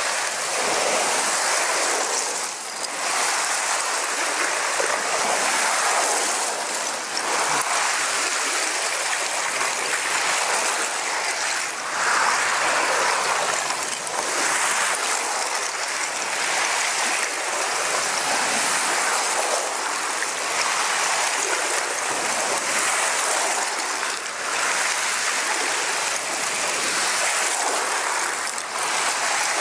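Masses of broken ice shards jostled by waves: a continuous glassy, clinking hiss that swells and eases every few seconds.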